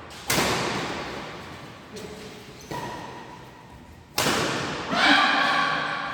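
Badminton rackets smacking a shuttlecock in a rally: four sharp hits one to two seconds apart, each ringing out in the hall's echo. Voices and shouts follow the last hit.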